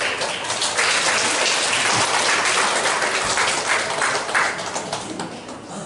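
Audience applauding: many hands clapping together. The applause starts at once, holds strong, then thins out and dies away near the end.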